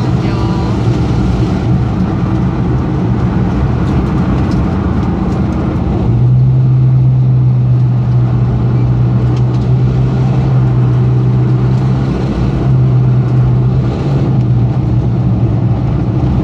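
Car engine running under way, heard from inside the cabin. About six seconds in it settles into a louder, steady drone at constant revs, which holds until near the end.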